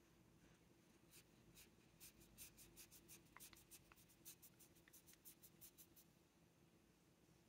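Faint swishing of a paintbrush dragging ink across a paper swatch card: a quick run of short strokes, about four a second, that thins out about six seconds in.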